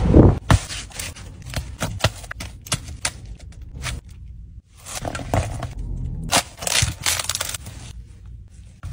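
Close-up crackling, tearing and rustling of food being handled: flatbread being torn and a wrap pushed into a plastic cup of sauce, with irregular sharp cracks, a loud thump at the start and a brief break about four seconds in.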